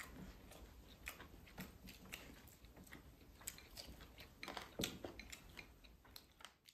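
Someone chewing stewed pork close to the microphone: faint, irregular smacks and clicks, with a louder cluster about four and a half to five seconds in.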